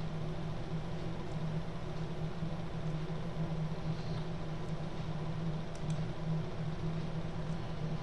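Steady low hum with an even hiss of background noise, with a couple of faint clicks about six seconds in.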